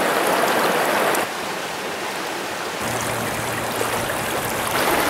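Stream water rushing steadily; its level drops abruptly about a second in and comes back up near the end.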